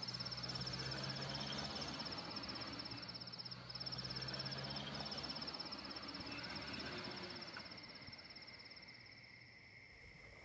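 Crickets chirping steadily as a night ambience, over a vehicle's low humming rumble that passes and fades away about eight seconds in.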